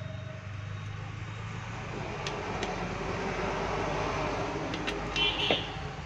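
Steady rumble of road traffic, swelling a little toward the middle. Over it come a few small clicks of a plastic knob and metal parts being handled, and a short louder clatter near the end.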